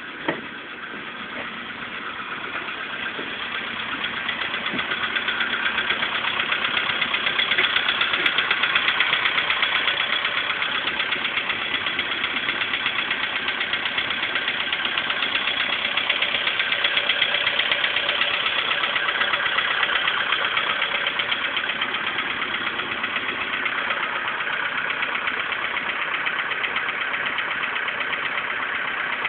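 Volkswagen Polo Sedan engine running with a fast, steady knock, which the owner puts down to worn pistons and rings. The knock grows louder over the first several seconds and then holds steady. A single sharp click comes just after the start.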